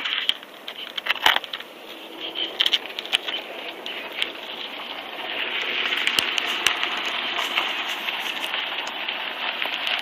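Crackling hiss of wind and handling noise on a handheld phone mic during a bicycle ride on pavement, with many scattered clicks and rattles; it grows steadier and a little louder about halfway through.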